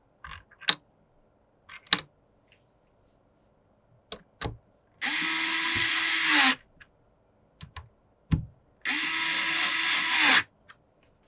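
Small electric screwdriver driving screws in two runs of about a second and a half each, its motor pitch sagging just before each run stops. Light clicks and taps of hardware being handled come before and between the runs.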